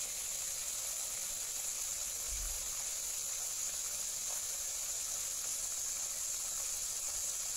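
Marinated boneless milkfish (bangus) fillets frying in hot oil: a steady sizzling hiss.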